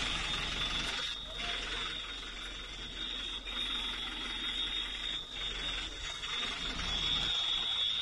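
An alarm sounding one steady high-pitched tone over a rushing background noise, with a few brief dropouts.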